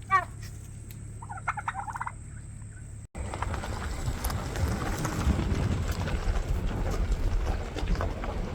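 A turkey gobbling twice in short warbling calls, about a second and a half apart. Then, after a sudden cut, a steady low rumbling noise with faint scattered knocks.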